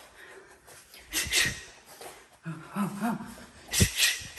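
A boxer's sharp hissing exhalations as he throws punches: a quick breath about a second in and two more close together near the end, with a brief low vocal sound between them.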